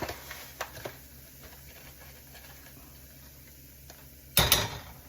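Flour and olive oil sizzling faintly in a pan as a roux starts, with a few light clicks in the first second. About four and a half seconds in, a utensil clatters loudly against the pan for about half a second.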